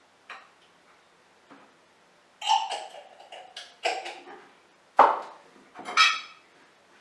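A metal spoon clinking and tapping against a glass bowl and a small glass sugar jar. A couple of light clicks come first, then from about two and a half seconds in a quick run of clinks and knocks, the sharpest about five seconds in.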